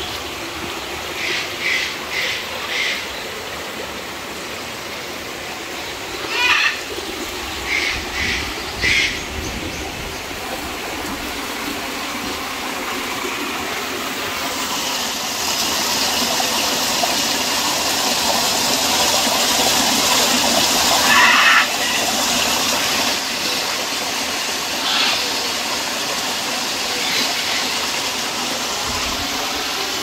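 Stream water running over rocks, a steady rushing hiss that grows louder about halfway through. Short bird calls come in quick groups of three or four notes over it in the first ten seconds, with a louder call a little after halfway.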